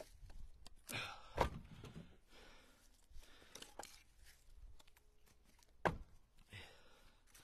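Split pieces of seasoned red oak firewood knocking together as they are handled and tossed onto a load, with a sharp wooden knock about a second and a half in and another about six seconds in. Between the knocks there are softer clacks and rustling steps in dry leaves.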